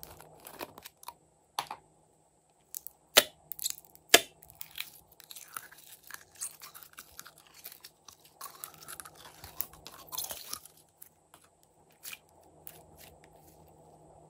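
A few sharp plastic clicks as the small slime jar is opened, two loud ones about three and four seconds in, then clear blue glitter slime crackling and squelching as it is pulled out of the jar.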